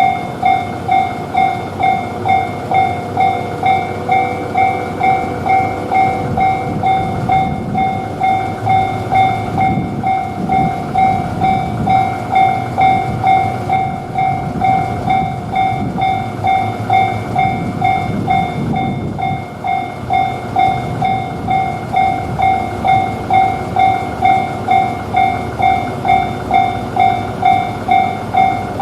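Japanese level-crossing warning bell ringing its steady "kan-kan" at about two dings a second. Partway through, a train passes over the crossing with a low rumble, and the bell keeps ringing after it has gone.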